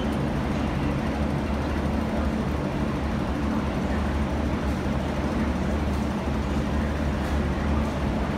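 Steady low rumble and hum on an underground metro platform, as a Kwun Tong Line train approaches the station through the tunnel.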